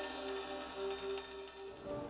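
Background music with sustained, held tones and a light high shimmer, changing into a louder track near the end.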